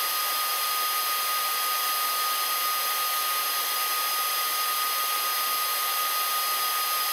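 Laser engraver running while it engraves: a steady rushing hiss of its fans with several thin steady high whines on top.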